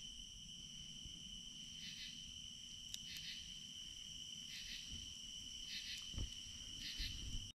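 Night insects, crickets among them, keep up a steady high-pitched trill. A louder chirping call joins in every second or so, and a couple of faint pops come from the campfire.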